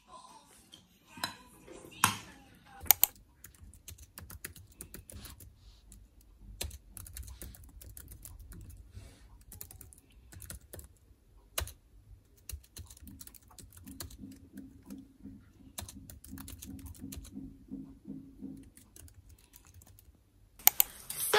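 Typing on a MacBook Air laptop keyboard: a quick, irregular run of light key clicks. A couple of louder, sharp clinks come in the first three seconds.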